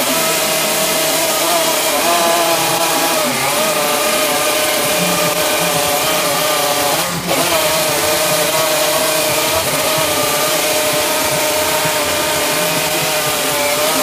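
Chainsaw running at high revs while carving into a wooden plank. Its pitch dips briefly several times as the cut loads and eases, with one short break in the sound about halfway through.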